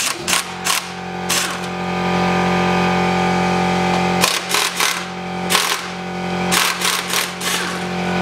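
A cordless power tool's motor running steadily, driving out the bolts that hold an under-engine splash shield. One long run of about four seconds is followed by several shorter runs, with short knocks and clatter between them as the bolts and shield come loose.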